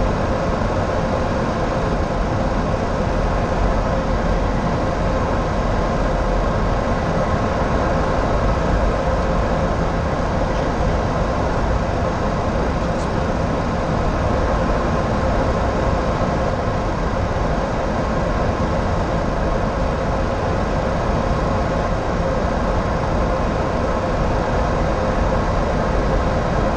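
Steady flight-deck noise of a Boeing 737-800 on final approach: a constant rush of air with a faint steady hum running through it.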